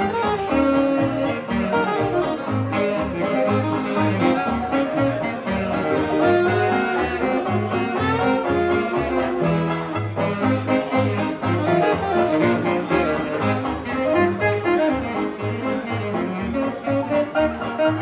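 Small 1920s-style hot jazz band playing live: saxophone and brass carry the melody over a steady, evenly pulsing bass beat, with banjo or guitar keeping time.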